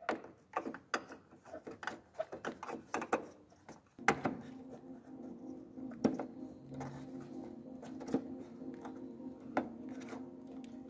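Plastic clicks and knocks of a hand working at the back of a Peugeot 308 headlight housing, pressing and turning its round rear cover. From about four seconds in, a steady low hum runs under fewer, scattered clicks.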